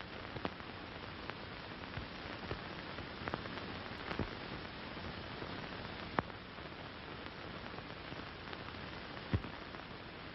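Steady hiss with scattered clicks and pops, a few of them sharper, about six in all: the surface noise of a 1930s optical film soundtrack.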